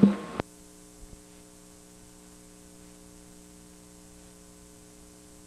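Electrical mains hum with a buzzy stack of steady tones and faint hiss, from the audio track of blank videotape after the recording cuts off. It opens with a brief loud low thump that ends in a sharp click, and two faint ticks come about a second in.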